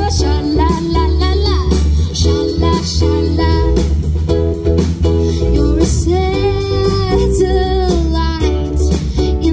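A band playing a song live: a woman sings over acoustic and electric guitars, bass and a drum kit, holding one long note about six seconds in.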